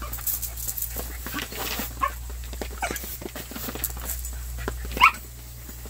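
Shetland sheepdog giving short yips and whines while it chases a push broom, over the scratch and scrape of broom bristles and paws on a woven outdoor mat. The loudest yip, a quick rising-and-falling call, comes about five seconds in.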